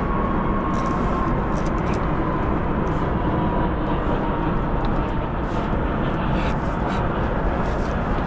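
Steady rushing wind noise buffeting the microphone, heaviest at the low end, with light scattered clicks and a faint thin tone that slowly drifts lower.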